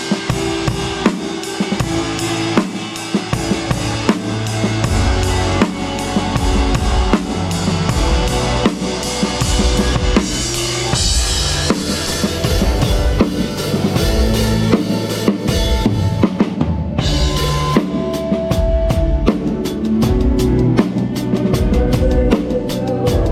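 Live rock band playing a song at a sound check, the drum kit loudest, with bass drum and snare hits over bass and guitar. About 17 seconds in the full sound cuts for a moment, then the drums carry on.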